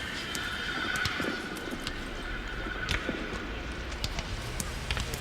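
Ambient electronic music: a wavering high tone over a low hum until about three seconds in, with scattered sharp clicks.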